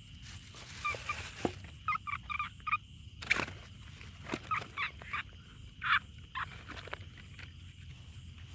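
A frog croaking in runs of short, quick notes, with a few sharp handling knocks from a plastic bottle and bucket, the loudest a little over three seconds in. A steady high hum runs behind.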